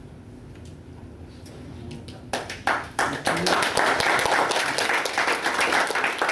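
Quiet room, then an audience breaks into applause a little over two seconds in, many hands clapping and keeping on.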